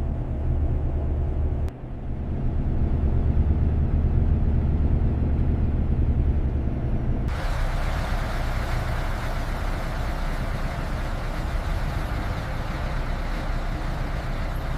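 Motorhome on the road: steady low engine and road rumble. About seven seconds in it changes abruptly to a brighter, hissing road and traffic noise.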